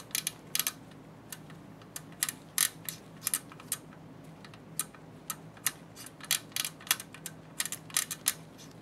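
A Haag-Streit slit lamp's freshly greased rotary diaphragm selector being turned by hand, giving a run of small sharp clicks at irregular spacing, about three or four a second, as it is checked for turning freely after a tension adjustment.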